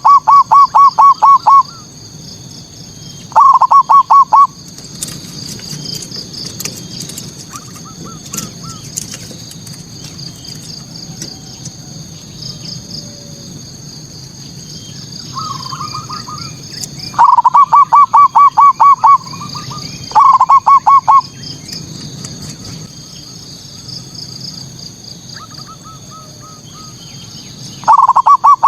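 Zebra dove (perkutut) cooing its song: loud bursts of rapid, evenly spaced notes, five phrases separated by long pauses, the last starting near the end. A steady high twittering runs underneath throughout.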